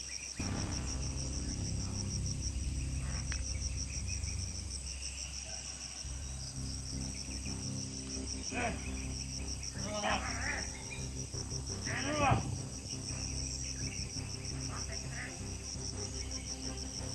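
Insects trilling in a steady, fast high-pitched pulse, over a low background music drone. A few short rising-and-falling calls cut through near the middle.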